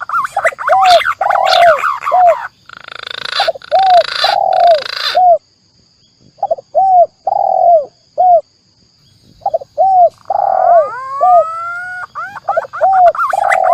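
Bird-lure recording of spotted dove (tekukur) and green pigeon (punai) calls: rapid runs of short, arched cooing notes, broken by two short pauses, with rising whistled glides about ten seconds in.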